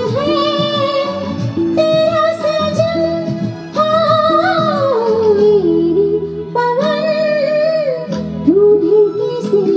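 A woman singing a Hindi film song over instrumental accompaniment with plucked strings, in phrases of long held notes with vibrato, one of them sliding down in pitch about halfway through.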